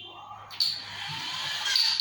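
Toy car's electronic sound effects starting abruptly about half a second in: a noisy rush with rising and falling siren-like tones.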